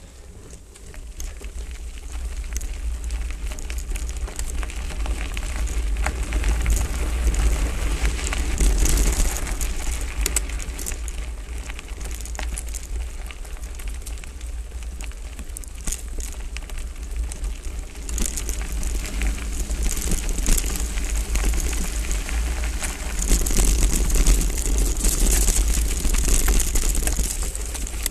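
Hardtail mountain bike riding along a dirt trail, heard from a camera on the bike or rider: wind buffeting the microphone as a steady low rumble, with tyres crunching over gravel and the bike rattling in scattered clicks. It grows louder about a second in and again near the end.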